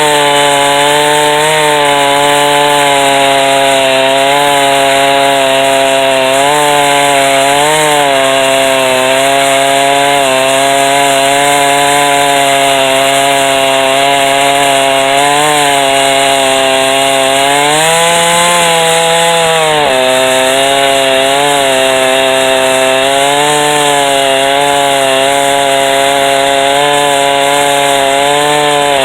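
Two-stroke chainsaw on a chainsaw mill running at full throttle through a white oak log, its engine note steady under load with small dips. About two-thirds of the way through the revs rise for a couple of seconds, then settle back into the cut.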